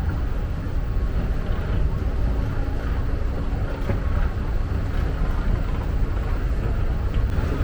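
Steady low rumble of a river boat's engine under way, with wind buffeting the microphone.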